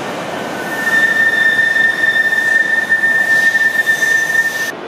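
Manchester Metrolink M5000 tram's steel wheels squealing on a tight curve in the track as it runs slowly past, over the noise of the tram running. One steady high squeal starts about a second in, holds for nearly four seconds and cuts off sharply near the end.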